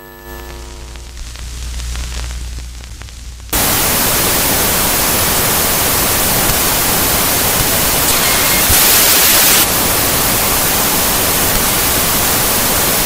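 TV-style static sound effect for a 'disturbance' glitch screen. A fainter low electric hum with a few steady tones comes first. About three and a half seconds in, loud white-noise hiss cuts in abruptly and holds steady, briefly brighter near the ninth second.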